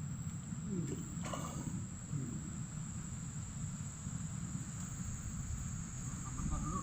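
Insects trilling in one steady high-pitched chorus, with a low rumble underneath and a couple of faint clicks about a second in.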